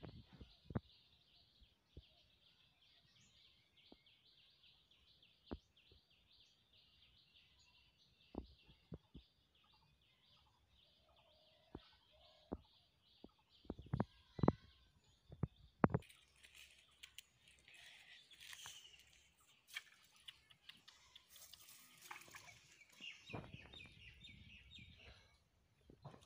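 Faint bird chirping. A high call repeats several times a second for the first half, then turns busier and more varied. A few short, soft knocks are scattered through it, the loudest about halfway.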